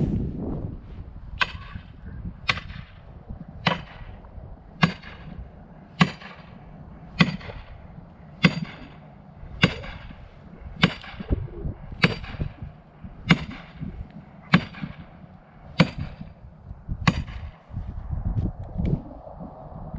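Axe blows struck steadily, fourteen sharp ringing hits a little over a second apart, to drive over a partly cut tree that has begun to crack.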